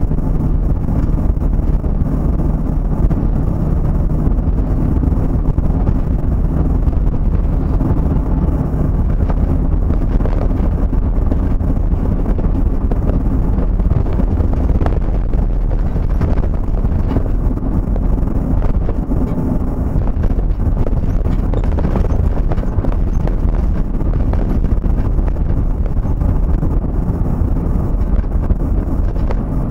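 Road and engine noise inside a moving vehicle at cruising speed: a steady low rumble with a faint even drone and no change in speed.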